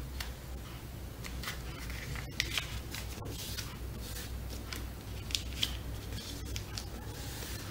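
A sheet of paper rustling and crackling as it is folded lengthwise in half and the crease is pressed flat by hand, in scattered short crackles over a low steady hum.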